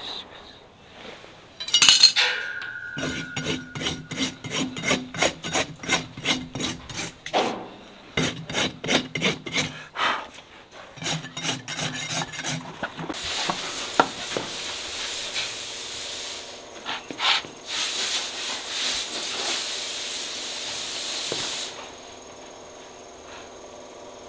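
Farrier's hoof rasp filing a horse's hoof: a run of quick, even strokes, about three a second, then longer continuous rasping. A sharp metallic clank that rings briefly comes about two seconds in.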